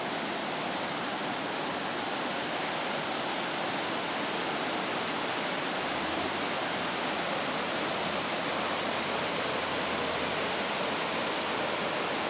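Waterfall cascading down broad sloping rock shelves: a steady, unbroken rush of water.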